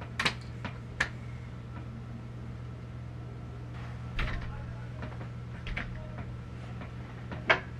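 Hair straightener being clamped and slid along hair, with about five sharp plastic clicks as the plates snap shut and open, the loudest near the end, over a steady low hum.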